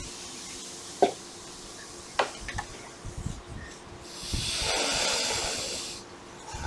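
Two sharp taps about a second apart, then a deep breath drawn in that lasts about two seconds, as he settles before chanting.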